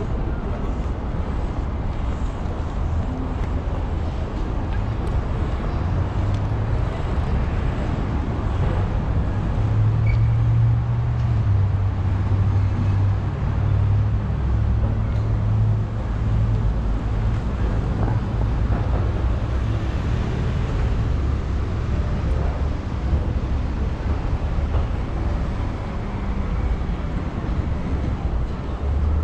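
City street traffic: a steady wash of road noise with a low engine rumble that swells in the middle stretch and eases toward the end.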